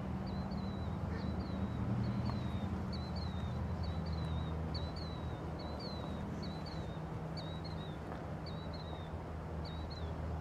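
A bird calling a short hooked chirp over and over, about every half second or so, over a steady low engine hum whose pitch shifts slightly partway through.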